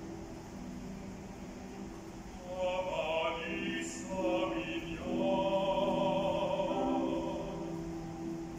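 A male opera singer sings with grand piano accompaniment; the piano is heard alone at first, and the voice enters about two and a half seconds in.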